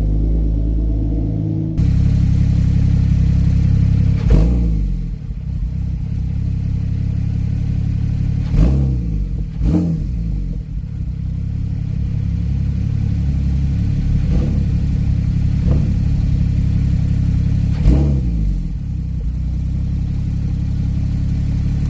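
2014 Porsche 911 Turbo S twin-turbo flat-six running through a newly fitted Fabspeed aftermarket exhaust, idling with about six short blips of the throttle.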